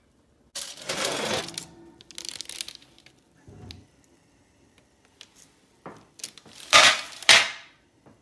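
Metal baking sheet scraping and clattering as it is pulled off an oven rack with an oven mitt, with a few dull knocks. The loudest scrapes come as a pair near the end.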